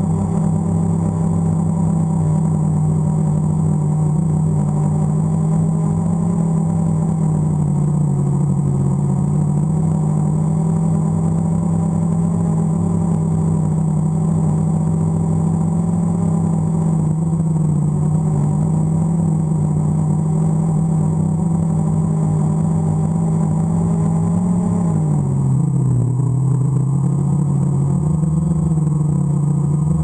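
DJI Phantom quadcopter's motors and propellers droning steadily, heard from the camera mounted on the drone itself. The pitch drops sharply a few seconds before the end and holds lower.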